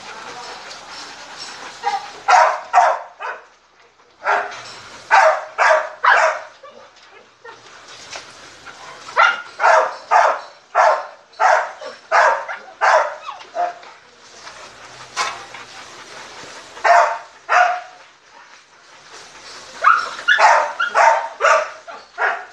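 Dog barking in repeated runs of two to five sharp barks, with short pauses between the runs, over the steady rolling hiss of a carpet-covered slatmill.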